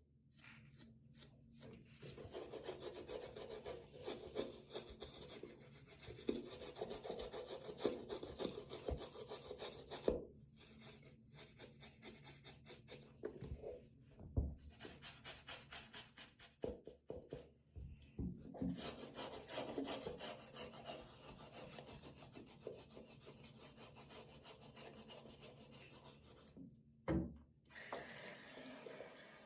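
A scrubbing brush worked over a sneaker in rapid back-and-forth strokes, stopping briefly a few times, with a few dull knocks as the shoe is moved in the sink. Near the end, running water starts.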